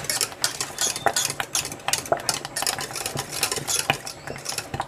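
Wire whisk stirring a thick simmering cocoa and agar-agar pudding in a stainless steel saucepan, its wires clicking and scraping rapidly against the pan.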